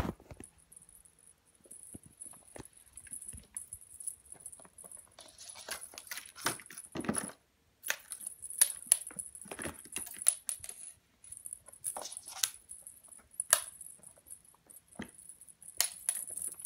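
Plastic circle-track cat toy rattling and clicking as a kitten bats at it, its ball knocking in the track, in irregular light clicks with a busier spell of rattling partway through.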